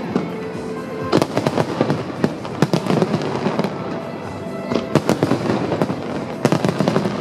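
Aerial fireworks going off: sharp bangs and crackle in several dense clusters, one after another, over a continuous bed of noise.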